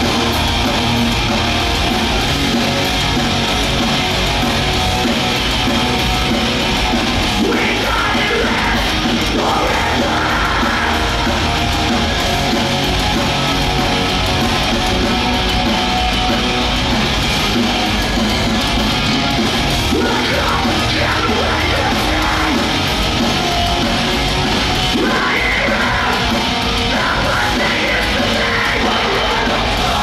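Hardcore punk band playing live: distorted electric guitars, drums and shouted vocals, loud and steady.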